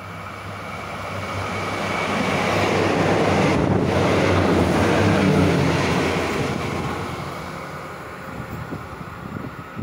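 Diesel express train running through the station without stopping. The engine hum and the wheel-on-rail rumble build up, are loudest for a few seconds midway as the carriages go by, then fade as the train moves away.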